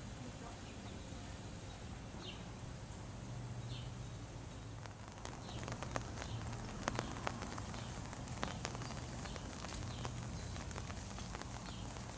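Outdoor ambience: a steady low hum with a few short bird chirps in the first few seconds, then scattered clicks and taps from about five seconds in.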